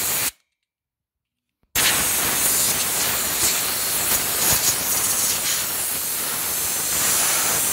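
Compressed-air blow gun on a compressor hose blowing dust out of a desktop computer case: a loud, even hiss of air. It cuts off about a third of a second in, stays silent for about a second and a half, then starts again.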